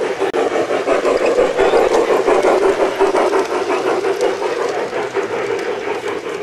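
Garden-railway model train rolling past on outdoor track: a steady running hum with rapid clicking from the wheels over the rails. It is loudest as the coaches pass close, about two to four seconds in, then eases off.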